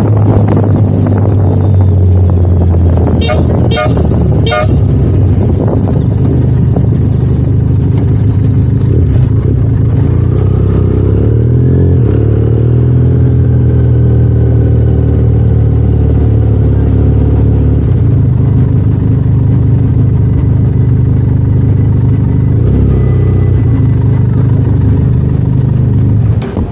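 Motorcycle engine running with wind rush, heard from the bike itself. Three short horn toots come about three to four and a half seconds in. The engine note slides around twelve seconds in, and the engine cuts out near the end as the bike comes to a stop.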